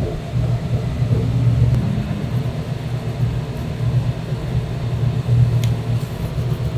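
A steady low rumble that runs without a break, with a single light click about five and a half seconds in.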